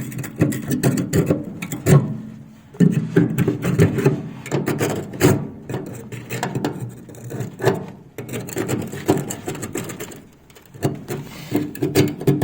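Metal hand scraper scraping rust off the rusted, seized pins of a Char-Broil gas grill, in short irregular scratching strokes with small clicks and knocks. There are brief pauses about two seconds in and again near ten seconds.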